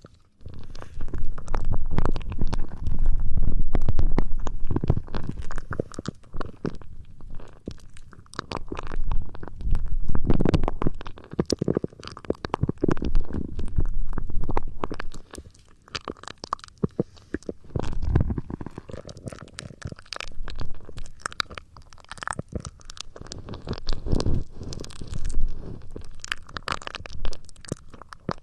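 ASMR trigger sounds close on the microphone: muffled rubbing and scratching in swells of a few seconds, with many small crackles and clicks.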